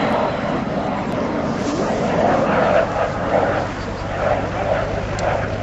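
Jet noise from a Fouga Magister's twin turbojets as it makes a low pass, a steady, even noise that swells and eases slightly.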